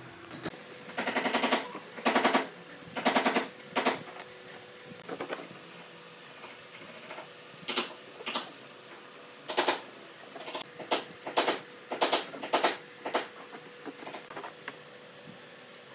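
Handheld ribbed metal roller rolled in strokes through wet white glue on a wooden board, each stroke a short rapid rattling clatter. The strokes come in quick runs, louder in the first few seconds.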